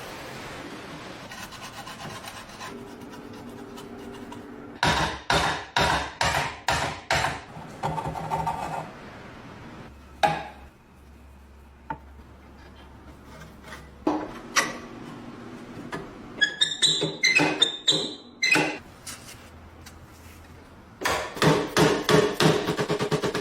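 Hand tools working on a rusty padlock: groups of sharp knocks and scrapes, then a fast, even run of rasping strokes near the end, like filing or brushing off rust.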